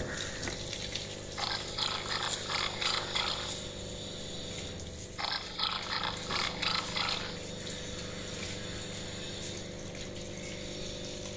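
Two runs of rapid, harsh animal calls, each about two seconds long, over a steady background hum.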